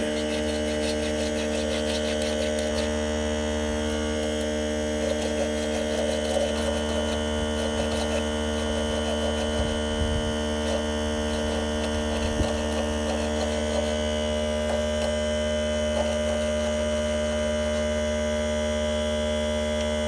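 Steady electrical mains hum, a stack of unchanging tones, with a few faint small clicks and rustles of handling now and then.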